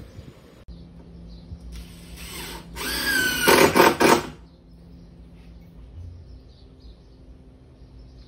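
Power drill running into pine boards in two bursts: a short, quieter one about two seconds in and a longer, louder one about a second later with a rising whine.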